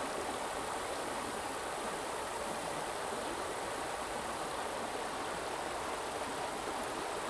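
Steady, even hiss of light rain falling on and around a creek.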